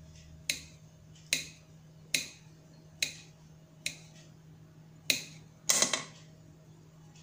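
Knife cutting through a log of frozen rolled dough, each slice ending in a sharp tap of the blade on the marble counter, about one a second. Near the end a quick cluster of louder knocks as the cut slices are handled.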